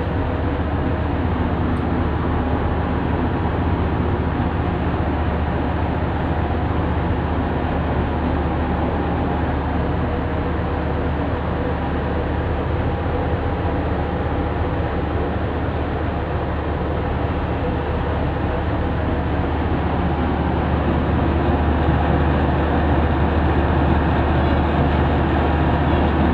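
Marine diesel engine of the tugboat running steadily: a constant low drone with several steady tones over it, slightly louder in the last few seconds.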